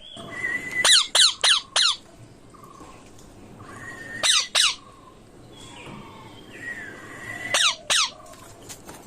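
Ringneck parrot squawking in three bursts of harsh, downward-sweeping calls: four in quick succession about a second in, two around the middle and two near the end. Each burst is introduced by a short held whistle.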